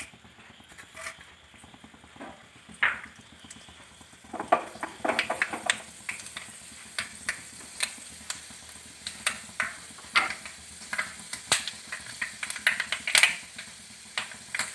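Fenugreek seeds frying in hot sesame oil in a pan: a steady sizzle with irregular crackles and pops as the seeds toast. The pops are sparse at first and come thick and steady from about four seconds in.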